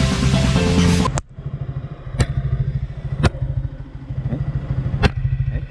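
Music cuts off about a second in, then a Yamaha YZF-R15's single-cylinder engine idles steadily, with three sharp clicks over it.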